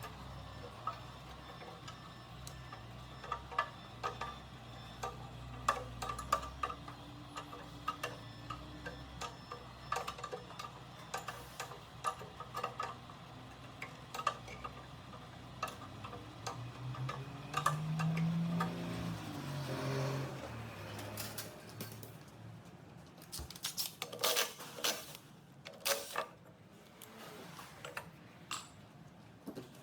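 Repeated metal clicks and clinks, like hand tools working on metal compressor parts, with a few louder metallic knocks about 24 to 26 seconds in, over a low steady hum.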